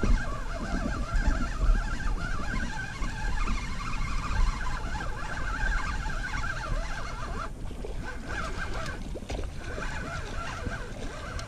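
Wind rumbling on the microphone under a continuous busy chorus of small animal calls from the pond's surroundings, which drops out briefly twice in the second half.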